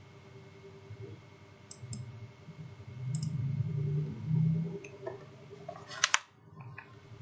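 Computer mouse clicks: a few light clicks, then a sharp double click about six seconds in. A low, muffled rumble rises and fades between them.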